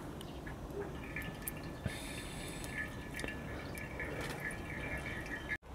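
Engine oil draining from the open sump drain hole into a drain pan: a faint steady trickle and dripping. A faint, high, steady tone runs in the background from about a second in until near the end.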